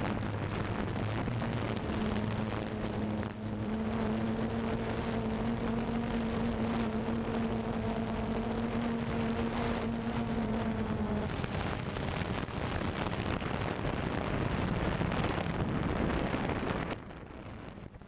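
Multicopter drone's motors and propellers humming steadily, picked up close by its onboard camera, with wind rushing over the microphone. The steady hum fades about eleven seconds in, leaving mostly wind and rushing noise, which drops sharply near the end.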